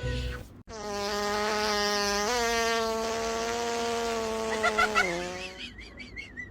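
A long, buzzy fart sound, lasting about four and a half seconds on a steady pitch that steps up once and drops as it ends, with three short sharp blips near the end.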